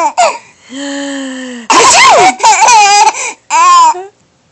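Baby girl laughing at a sneeze, in three loud high-pitched squealing bursts, after a short held lower voice about a second in. The laughter stops about four seconds in.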